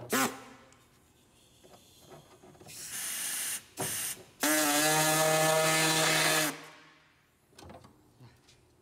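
Pneumatic drill on an air line drilling out a tight corner of a vent cut-out in a sheet-metal car hood: two short hissy spurts, then about two seconds of a steady whine with air hiss that stops suddenly.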